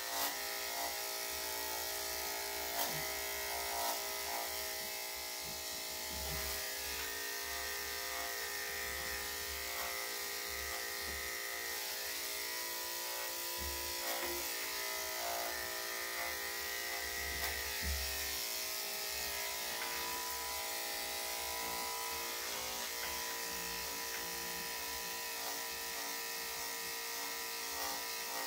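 Corded electric dog grooming clippers running steadily, a #7 split-tooth blade shaving through a Shih Tzu's coat.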